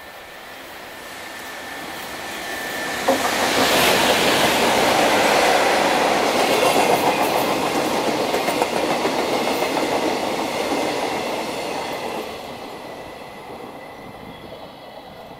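Freight train passing close at speed, led by the JR Freight EF200 electric locomotive and followed by flat wagons loaded with long rails. It grows louder on approach, turns suddenly loud as the locomotive reaches the platform about three seconds in, keeps up a dense running noise of wheels and wagons, and fades away over the last few seconds as the train clears.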